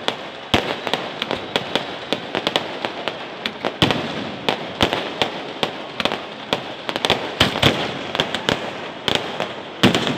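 Fireworks and firecrackers going off in quick, irregular succession: many sharp bangs and cracks, several a second at times, over a steady background hiss.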